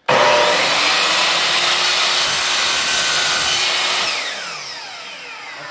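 Electric miter saw starting abruptly and cutting a piece of quarter round trim at an angle, running loud and steady for about four seconds, then its blade winding down with a falling whine after the trigger is released.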